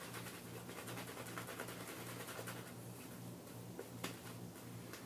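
Shaving brush working soap lather on the face: faint, rapid scratchy swishing of the bristles through the lather.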